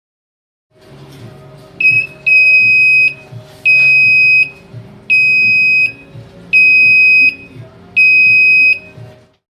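Electronic alarm buzzer beeping a steady high-pitched tone on and off: a short blip, then five beeps of just under a second each, starting about one and a half seconds apart, over a faint low hum.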